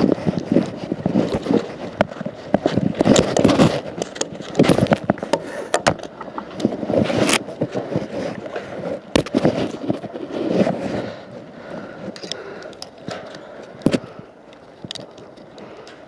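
Irregular scraping, crackling and sharp knocks, dense in the first half and thinning out later.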